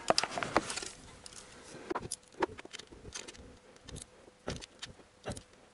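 Socket ratchet clicking as the crankshaft position sensor's retaining bolt is tightened: a quick run of clicks at first, then single clicks about half a second to a second apart.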